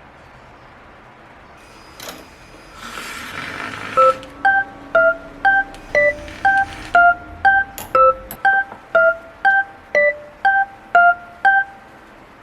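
An electronic beeper playing a simple tune: sixteen short beeps, two a second, alternating a repeated high note with lower notes. It is preceded by a click and a brief rustle.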